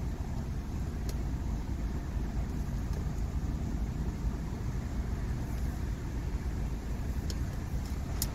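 Steady low rumble inside the cabin of a 2015 BMW X3, with three faint clicks, one about a second in and two near the end.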